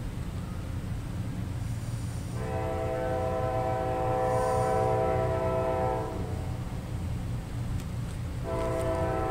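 Horn of an approaching KCS ES44AC diesel locomotive leading a freight train, heard from a distance over a steady low rumble. One long multi-note blast begins about two seconds in, and a second starts near the end: the locomotive sounding for a road crossing.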